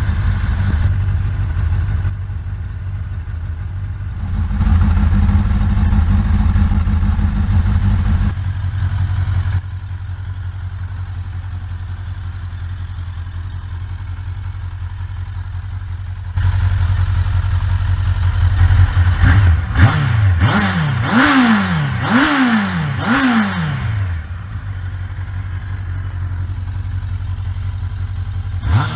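1992 Suzuki GSX-R750's inline-four engine idling through an aftermarket slip-on muffler, with about four quick throttle blips past the middle, each revving up sharply and dropping back to idle.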